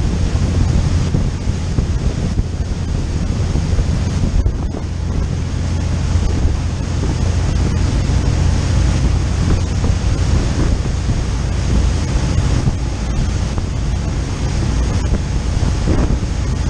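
Wind buffeting the microphone over the rush of a motor yacht's foaming wake at speed, with a steady low rumble underneath.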